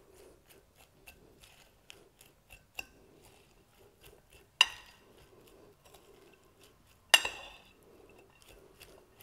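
Two metal forks tossing shredded iceberg lettuce in a ceramic bowl: frequent light clinks of the forks against the bowl, with two sharper ringing clinks about halfway through and again about three-quarters of the way through.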